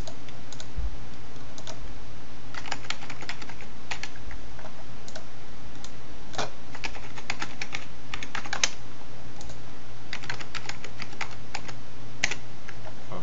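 Computer keyboard typing in three short runs of keystrokes over a steady low hum.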